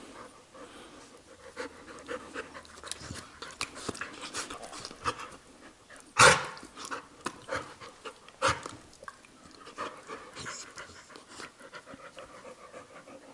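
Labrador retrievers panting during rough play, with one short loud sound about six seconds in and a smaller one about two seconds later.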